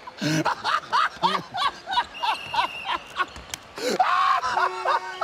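Men laughing hard in rapid, rhythmic 'ha-ha' bursts, rising to a louder shriek of laughter about four seconds in. A few steady held tones come in during the second half.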